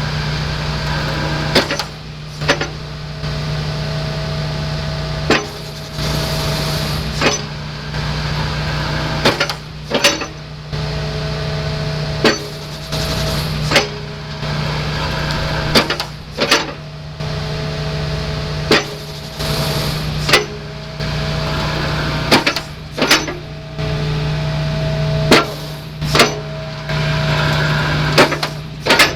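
Hydraulic excavator's diesel engine running steadily while a Furukawa Vs22 secondary crusher attachment is worked, with a hydraulic whine that comes and goes and a sharp clunk every second or two as the jaws open and close.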